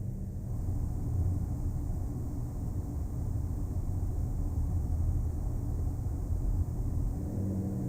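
Ventilation system running: a steady low rumble of moving air and fan with a faint hum. Near the end it changes to another ventilation sound with a stronger, steadier hum.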